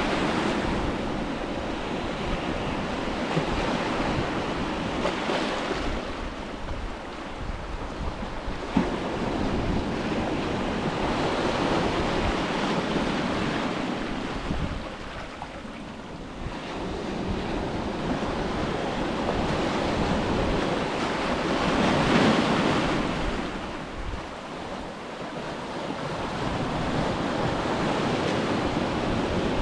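Ocean waves breaking and washing up on a beach, the surf swelling and ebbing every several seconds, with wind rumbling on the microphone. A brief knock about nine seconds in.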